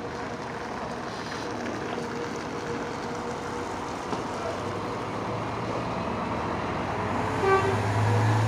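Scania K410IB coach's 13-litre six-cylinder diesel engine running as the bus pulls away and drives past, its low hum and road noise growing louder. There is a brief higher tone near the end.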